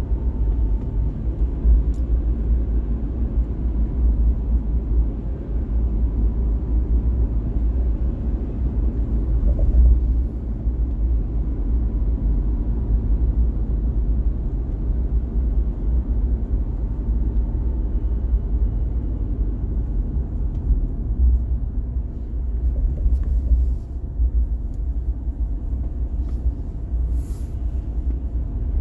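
A car driving at speed, giving a steady low rumble of road and tyre noise with engine hum.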